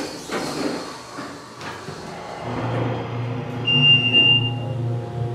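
Hydraulic elevator starting a run: the door rumbles shut, then about two and a half seconds in the pump motor starts with a steady low hum that keeps going. A single high beep, about a second long, sounds partway through the hum.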